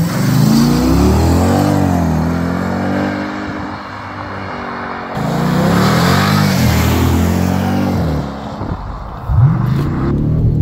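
2014 Jeep Grand Cherokee SRT's 6.4-litre HEMI V8 through a Magnaflow stainless steel exhaust, accelerating by in two passes, its pitch rising and falling, with a quieter stretch between. Near the end the engine is heard from inside the cabin, with a sharp rising rev.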